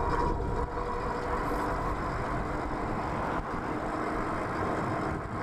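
Steady wind rush and road noise on the microphone while riding a Super73 S2 electric bike, with a faint steady hum underneath.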